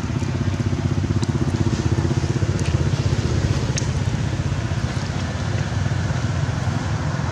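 A motor engine running steadily at one speed, a low pulsing hum that neither rises nor falls. A few faint short ticks sound over it.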